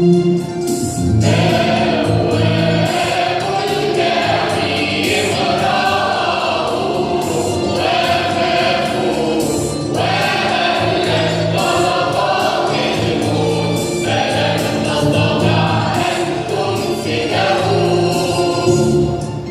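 Church choir singing an Easter (Resurrection) doxology in long sung phrases, over a steady beat of short percussive strikes.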